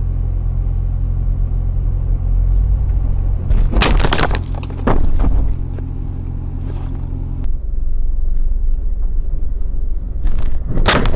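A car's engine drones steadily and low inside the cabin. Mud and slush thrown up by the vehicle ahead spatter against the windshield in two loud noisy bursts, about four seconds in and again near the end.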